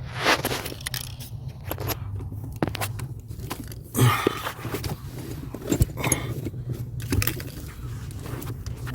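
Irregular scrapes, clicks and knocks of parts and tools being handled, with a louder clatter about four seconds in, over a low steady hum.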